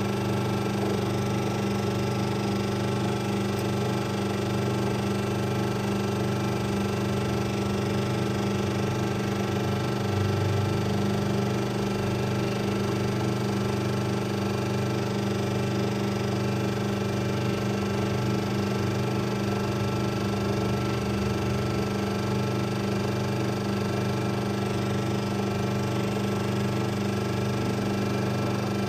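Tinius Olsen universal testing machine running with a steady hum of several fixed pitches while it compresses a block of wood along the grain.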